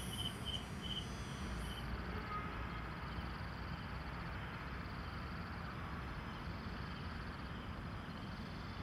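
Insects chirping, a few short high chirps a second over a thin high buzz. Both cut off suddenly about two seconds in, leaving steady outdoor background noise with a faint low hum.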